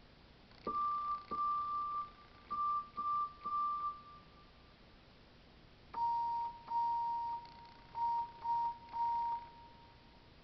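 Electronic keyboard playing imitations of steam engine whistles on a single whistle-like tone. There are two calls, each of two longer toots followed by three quicker ones. The second call is a little lower in pitch than the first.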